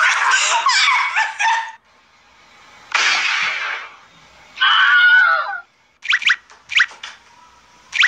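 Short animal cries and noisy bursts from several pet clips cut together: a wavering drawn-out cry about five seconds in, then a few quick, high, rising squeaks.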